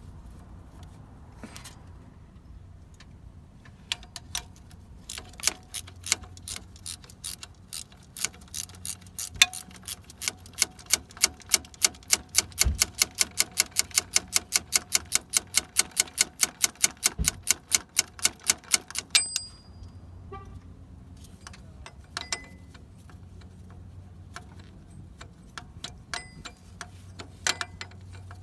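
Ratchet wrench clicking in a fast, even run of about five clicks a second for roughly ten seconds as a 15 mm bolt on the AC belt tensioner is backed out, with scattered metallic clicks and clinks before and after.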